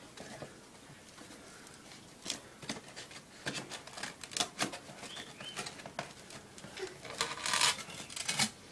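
A cardboard shipping box being opened by hand: its flaps are folded back, then the polystyrene foam lid of the insulated liner is rubbed and worked loose. It comes through as a run of light knocks, scrapes and rustles, with a louder scrape near the end.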